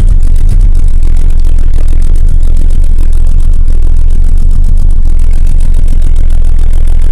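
Volvo 480's four-cylinder engine running loud and rough at idle on only two cylinders, with an even pulsing beat. Cylinders 3 and 4 are firing while 1 and 2 are dead, traced to a very weak or absent spark at the plugs.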